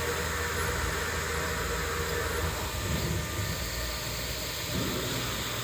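CNC router with a water-cooled spindle running, a steady mechanical noise with a low hum under it and faint steady tones.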